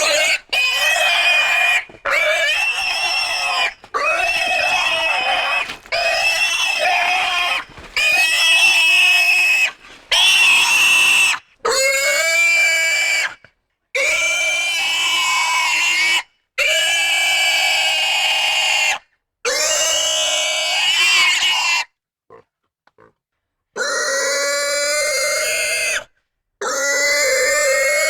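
Pig squealing intensely: a dozen or so loud, high-pitched screams, each one to two and a half seconds long, separated by brief silent gaps, with a longer pause of about two seconds late on.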